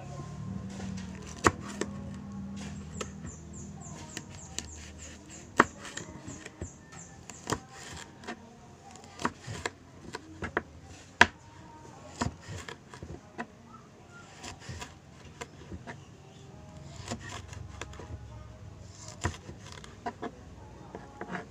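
Kitchen knife slicing a long green chili on a cutting board: irregular sharp taps of the blade striking the board, a few much louder than the rest.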